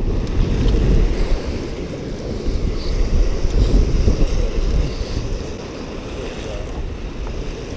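Wind buffeting the microphone over surf washing against the jetty rocks. The rumble eases a little after about five seconds.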